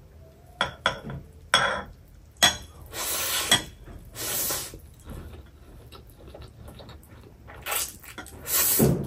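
Metal chopsticks click against a plate several times in the first few seconds. Chapagetti noodles are then slurped in a few short sucks, the longest near the end.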